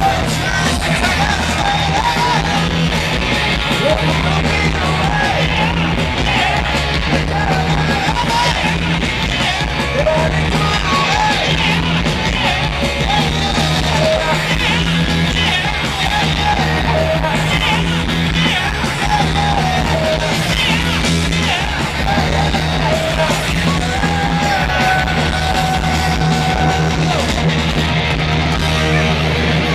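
Punk rock band playing live at full volume, with electric guitars and bass, and yelled singing over the top.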